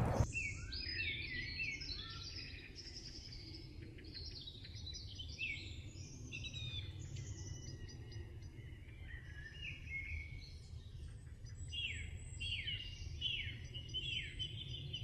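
Birdsong: several birds chirping and singing in quick overlapping phrases, starting abruptly, with a run of rapid falling notes near the end, over a steady low rumble.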